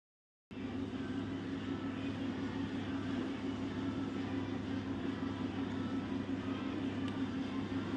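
A steady, even mechanical hum with a constant low drone, starting abruptly about half a second in.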